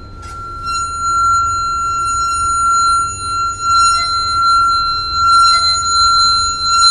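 Aluminum singing rod ringing at its natural frequency as rosined fingers pull along its length: one steady, piercing high tone with overtones above it, which sets in just under a second in and holds, swelling slightly with each stroke. The ring comes from longitudinal vibration along the rod.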